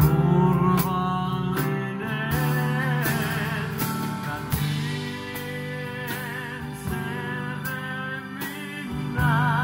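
Live band playing a song: a man singing into a microphone, his held notes wavering in pitch, over electric bass, keyboards and a drum kit keeping a steady beat.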